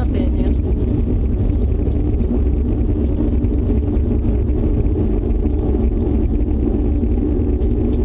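A loud, steady low rumbling drone with a steady hum above it, unbroken throughout: the unexplained 'strange noise' being recorded.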